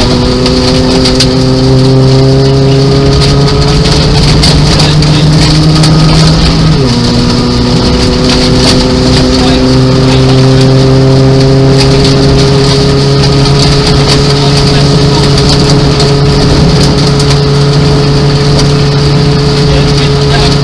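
Nissan Micra rally car's 1.0-litre engine, heard from inside the cabin, pulling hard with the revs climbing slowly. About seven seconds in the pitch drops sharply at an upshift, then climbs again. Gravel clatters against the underside of the car.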